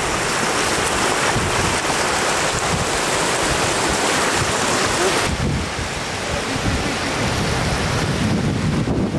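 Floodwater rushing off a road edge into a flooded field, a steady loud rush of water, with wind buffeting the microphone. The hissy top of the rush falls away about halfway through.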